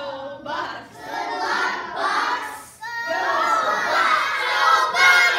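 A class of young children shouting and cheering together, swelling into a louder, fuller group cheer about three seconds in.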